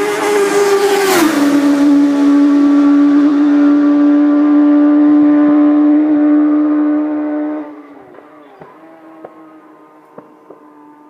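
Racing motorcycle passing flat out, its engine note dropping sharply in pitch as it goes by about a second in, then holding loud and steady as it pulls away. About eight seconds in it falls suddenly to a faint distant drone.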